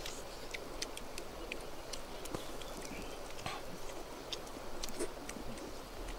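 People eating with their fingers: soft chewing and lip-smacking clicks, scattered and irregular.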